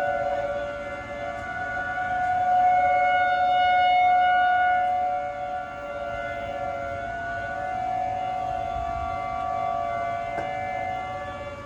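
Outdoor civil defense warning siren sounding during a siren test: a steady chord of several tones held together. It grows louder to a peak a few seconds in, then fades back and holds.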